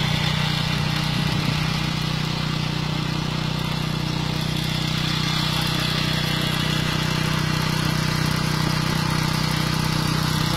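Motorcycle engine running steadily in gear, its spinning rear tyre driving a friction-driven water pump.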